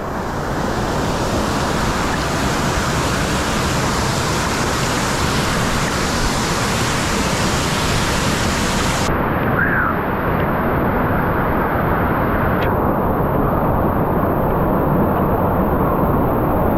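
Waterfall pouring down close to the microphone, a loud, steady rush of falling water. About nine seconds in the hiss loses its highest part and sounds duller.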